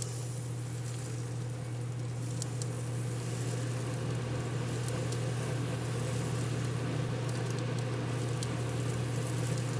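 Steady low electrical or machine hum with an even background hiss, and a few faint ticks.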